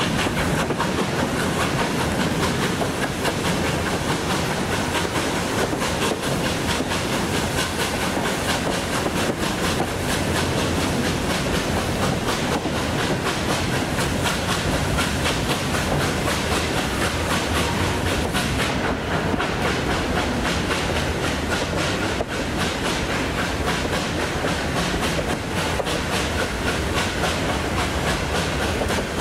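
Steam-hauled heritage passenger train on the move: a steady rumble of the carriages with the wheels clicking over the rail joints.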